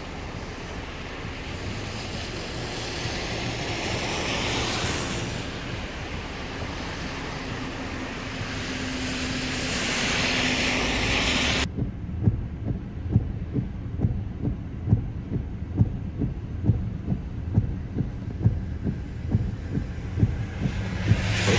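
Strong storm wind rushing in gusts that swell and ease. After a sudden cut a little past halfway, a low rumble takes over with a regular run of soft thumps, about one and a half a second.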